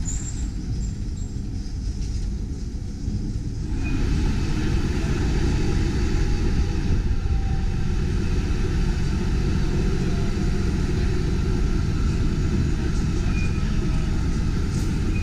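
CLRV streetcar running along its track: a steady low rumble of wheels and running gear, stepping up in level about four seconds in.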